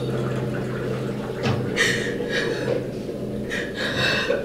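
A woman crying: several sniffs and sobbing breaths in the second half, over a steady low hum.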